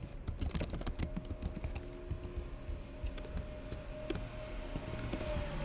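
Typing on a computer keyboard: irregular, quick keystroke clicks.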